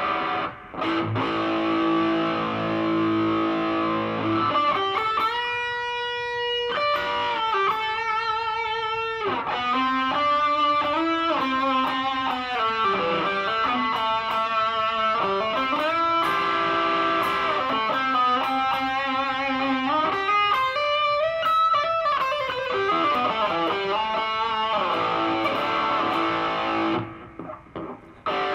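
Electric guitar played through an Artec G10x guitar amp with its overdrive on: sustained lead lines with string bends, stopping about a second and a half before the end.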